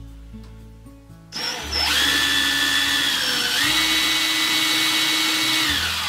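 Cordless impact driver spinning a small hex-shank drill bit, boring a pilot hole in a wooden cabinet door. The motor whine starts about a second in, runs steadily, steps slightly higher in pitch partway through, and winds down at the end, with quiet background music underneath.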